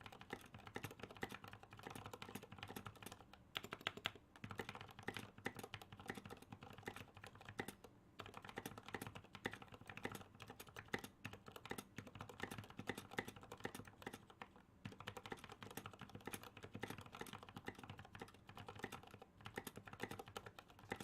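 Fast continuous typing on a mechanical keyboard with lubed Gateron Black linear switches and SA-profile keycaps: a dense stream of key strokes with brief pauses.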